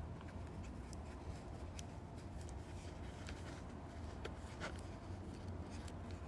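Faint handling sounds from a stainless-steel watch and its bracelet being touched in its presentation box: scattered light clicks and soft rubbing, with a few sharper ticks, over a steady low hum.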